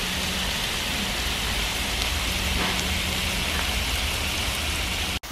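Pork belly sizzling on a large hot stone slab grill: a steady hiss of frying fat with small crackles. It cuts off abruptly near the end.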